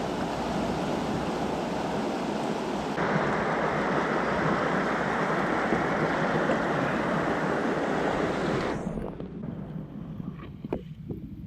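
River water rushing steadily, a broad hiss with some wind on the microphone. It drops away sharply about nine seconds in, leaving a quieter background with a few small clicks.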